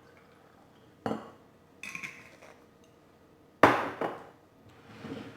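Objects being handled and set down on a table: a knock about a second in, a softer clatter near two seconds, and a louder sharp knock with a short ring about three and a half seconds in.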